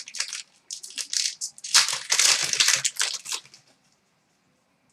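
Hockey trading-card packs and their wrapper being handled: a run of short crinkles and rustles with one longer crinkling stretch in the middle, stopping about three and a half seconds in.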